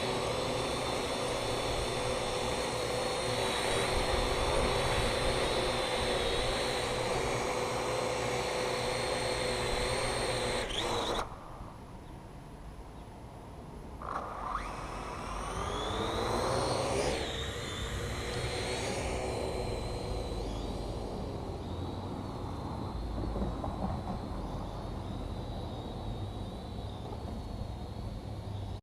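Parrot AR.Drone 2.0 quadcopter's electric rotors running with a steady whine. About eleven seconds in the motors cut out, then a few seconds later they spin back up with a rising whine and run steadily again.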